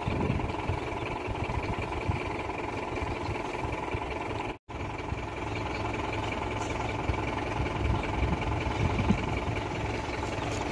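Sonalika 750 tractor's diesel engine running steadily. The sound cuts out for an instant just before the middle.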